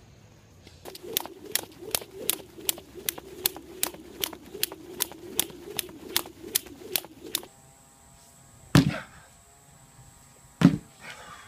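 Jump rope slapping the ground at a steady rhythm, about two and a half turns a second, over a steady hum, stopping after several seconds. Then two heavy thuds about two seconds apart: a sledgehammer striking a tire.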